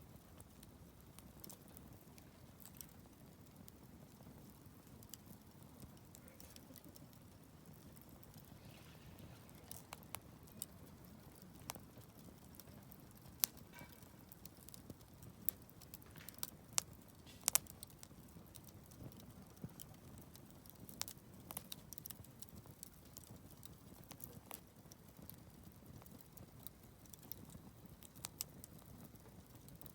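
Wood fire burning: scattered sharp crackles and pops over a low, steady rush of the flames, the pops coming thicker and louder about halfway through.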